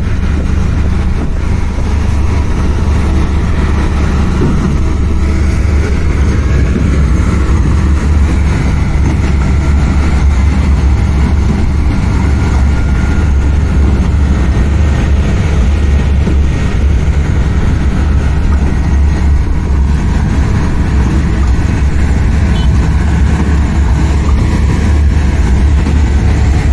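Heavy diesel truck engines running steadily in a deep, even drone: a Schwing truck-mounted concrete pump and the concrete mixer truck coupled to its hopper.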